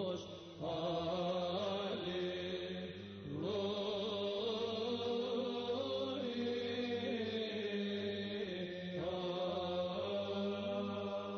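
Background music: a slow chanted vocal line over a steady low drone, sung in long phrases with short breaths between them.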